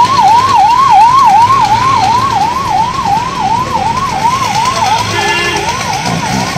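Ambulance siren sounding in a fast warble, its pitch rising and falling about two and a half times a second, over low traffic noise.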